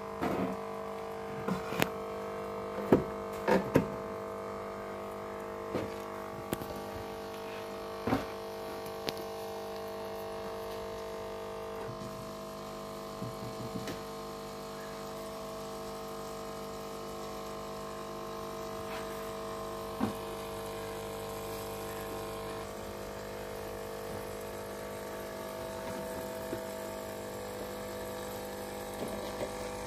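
Aquarium filter pump motor humming steadily, with water bubbling from its outlet. A few sharp taps break in, most in the first eight seconds and once about twenty seconds in.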